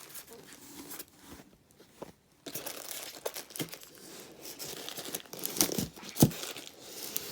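Packaging in a ceiling fan's box being handled: irregular rustling and crinkling, with a couple of sharp knocks about two-thirds of the way through.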